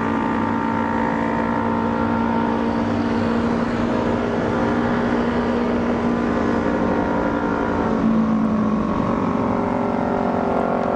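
Automatic motor scooter engine running at a steady cruising speed, heard from the rider's seat; its note shifts slightly about eight seconds in.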